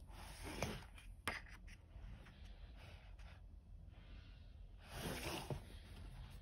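Pages of a paperback colouring book being turned by hand: soft paper swishes about half a second in and again around five seconds in, with a short tap of paper a little after one second.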